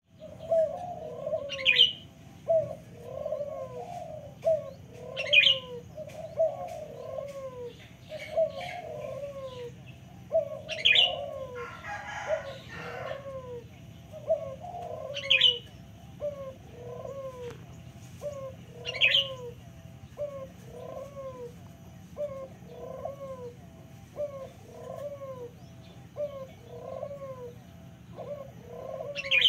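Local puter dove (Barbary/ringneck dove) cooing over and over, short arched coos following one another about every second and a half. Sharp higher chirps from another bird break in every few seconds, with a brief rustle about twelve seconds in.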